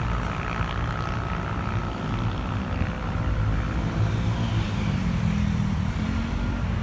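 Street traffic: a motor vehicle engine running, a steady low rumble with a wavering pitch in the second half.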